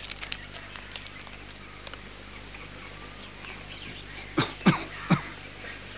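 A person coughing three times in quick succession a little past four seconds in, over faint room hiss with a few light clicks.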